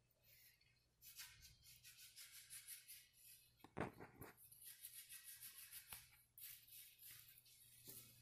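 Near silence: quiet room tone with faint rustling and a soft knock about four seconds in.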